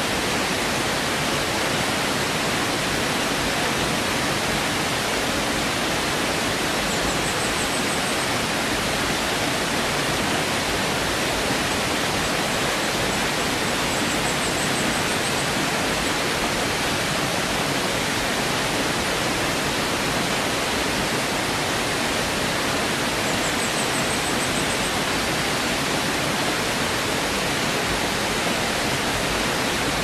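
Waterfall rushing into a rocky pool: a steady, even roar of falling water. A few faint high chirps come through it now and then.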